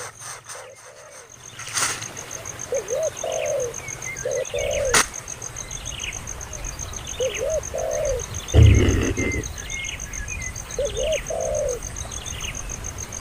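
Birds calling: a low cooing call repeated every second or two, with higher short chirps between. A sharp click about five seconds in and a heavy thump past the middle.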